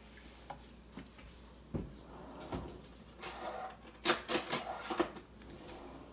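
Metal cutlery clattering in a kitchen drawer as it is rummaged and a table knife picked out, loudest in a burst of sharp clinks about four seconds in, after a couple of single knocks.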